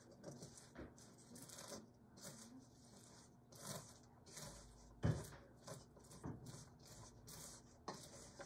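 Caramel-coated popcorn rustling and crunching as it is stirred with a wooden spoon in a stainless steel mixing bowl, in short irregular scrapes, with a louder knock of the spoon against the bowl about five seconds in.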